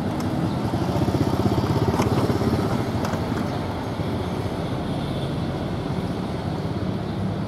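A small motorcycle engine running as it rides close past, louder about one to three seconds in and then fading into steady street traffic. There are a couple of light knocks near the middle.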